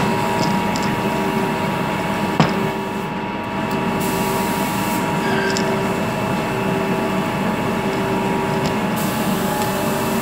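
Clay-forming machine for rolling ceramic hookah bowls running with a steady motor hum, with one sharp knock about two and a half seconds in.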